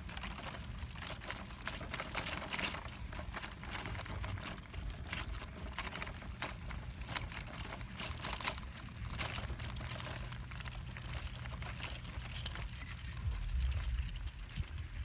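Wind buffeting the microphone: a low rumble with a dense, irregular crackle.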